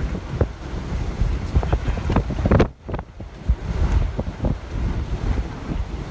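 Storm wind gusting hard against the microphone in a heavy, uneven low rumble, with ocean surf underneath. The rumble drops out briefly about three seconds in.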